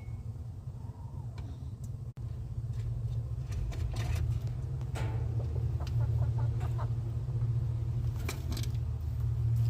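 A steady low rumble that grows louder in the second half, with a few faint clicks over it.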